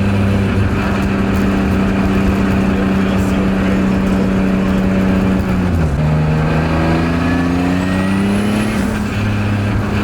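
Turbocharged BMW E36 M3 straight-six running at a steady drone while driving. About six seconds in the engine note drops, then rises again over the next few seconds.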